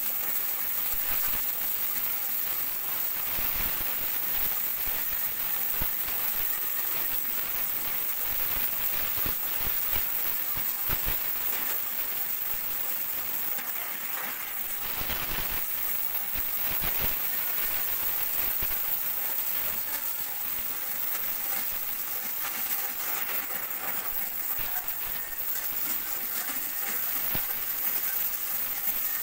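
Oxy-fuel cutting torch cutting a curved line through steel plate: a steady hiss of the gas jet with a dense crackle of sparks.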